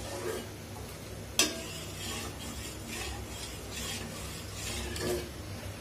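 Metal ladle stirring milk in a stainless steel pot, scraping the pot in soft swishes and scooping milk up and pouring it back, with one sharp clink of the ladle against the pot about a second and a half in. This is milk being stirred to blend in added curdled milk.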